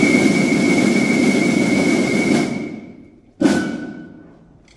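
Marching drums: a sustained drum roll that fades out near the three-second mark, then a single loud stroke about three and a half seconds in that rings out for about a second.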